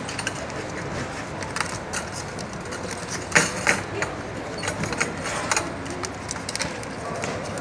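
Plastic pet carriers being handled and shifted on a hard floor: scattered clicks and knocks, the loudest a little over three seconds in, over a steady background hubbub of voices.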